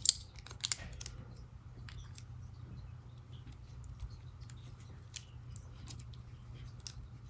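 Small scissors cutting, with a few sharp snips in the first second and faint scattered clicks after, over a steady low hum.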